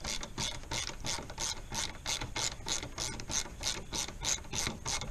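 Quarter-inch drive ratchet clicking steadily, about four clicks a second, as it is swung back and forth to back out a radiator mounting bolt.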